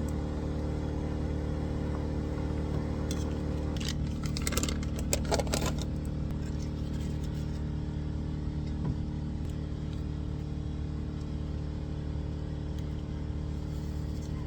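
A vehicle engine running steadily with a low, even hum. A few brief clicks and rustles come about four to six seconds in.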